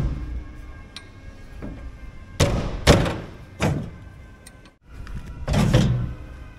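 The perforated steel engine side door of a crawler dozer being unlatched and swung open: a few sharp metal clunks between two and four seconds in, then a longer clatter about five and a half seconds in as the panel comes open.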